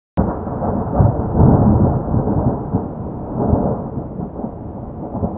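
Thunder rumbling. It cuts in suddenly from silence right at the start, is loudest over the first two seconds, swells again around three and a half seconds in, then slowly fades as a deep rumble.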